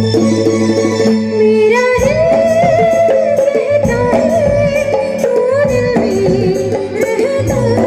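Live band music through a PA system: held keyboard chords, then from about two seconds in a wavering sung melody over keyboard and hand drums, in Hindi film-song style.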